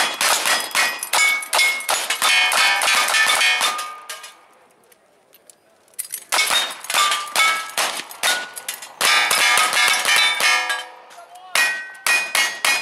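Rapid gunshots from two shooters' rifles and revolvers, with the steel plate targets ringing out with a metallic clang on each hit. The shots come in fast strings, with a lull of about two seconds about four seconds in and a short gap near the end.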